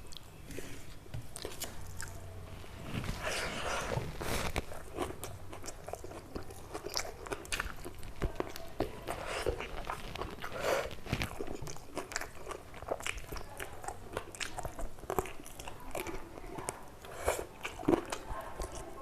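Close-up eating sounds: steady chewing with many sharp, crunchy bites, as of raw salad vegetables.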